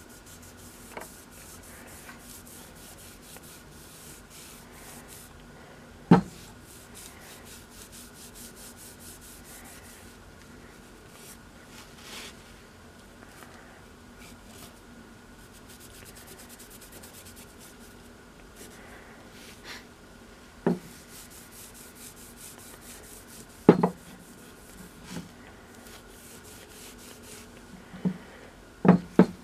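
Microfibre cloth rubbing oil into a wooden hatchet handle in soft, repeated wiping strokes. A few sharp knocks stand out, one about six seconds in, two in the last third and a pair near the end.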